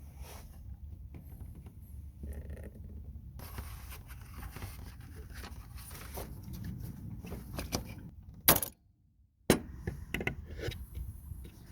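Hand-tool and parts handling during a thermostat job: scattered small metallic clicks and scrapes over a low rumble. Two sharp clicks come about a second apart, near the end, with a brief drop to silence between them.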